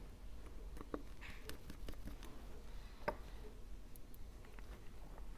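Small scattered clicks and taps of precision tools and small metal parts, such as tweezers, a screwdriver and a bracket, being handled while an internal bracket is fitted into an opened iPhone 12. The sharpest tap comes about three seconds in.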